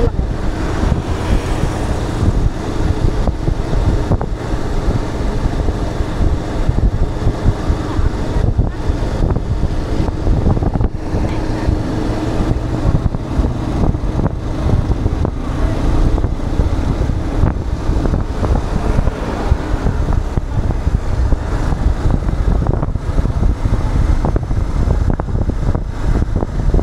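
Wind rushing over the microphone of a moving motorcycle, steady and loud, with the drone of its engine and road noise underneath.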